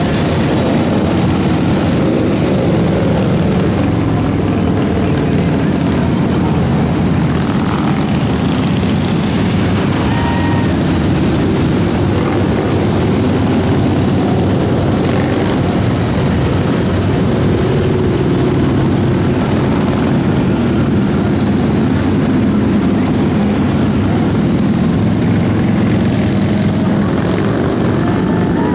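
Steady, loud drone of many large touring motorcycle engines running past in a long procession, with a brief high tone about ten seconds in.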